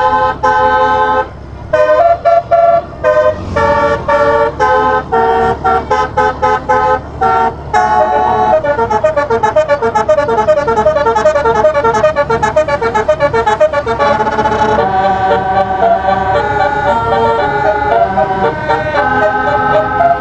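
Telolet basuri multi-trumpet air horn set playing a melody from a MIDI file in short, clipped horn notes. About a third of the way in it breaks into a fast run of rapidly repeated notes, and about two-thirds in it moves to longer held chords.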